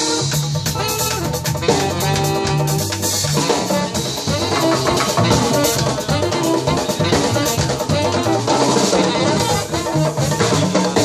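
Live jazz-funk band playing a busy groove: drum kit with cymbals and Uruguayan candombe drums (repique, piano and chico) hand-played together, over a moving bass line and held melodic notes.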